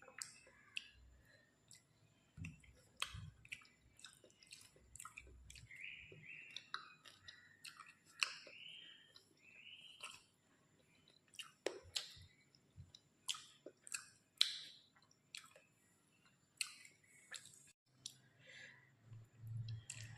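A person chewing and eating rice with curry close to the microphone: irregular wet mouth clicks and smacks, with a few soft squelches.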